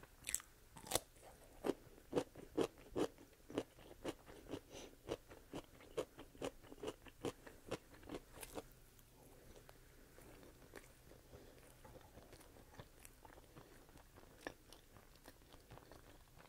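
Close-miked chewing of crunchy food: crisp crunches about three a second for roughly eight seconds, then only faint, soft mouth sounds.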